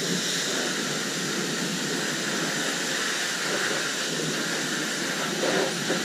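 Pressure washer jet spraying water against a planter, a steady hiss.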